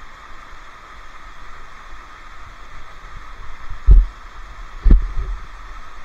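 Two dull, low thumps about a second apart, knocks against the moving camera, over a steady background hiss.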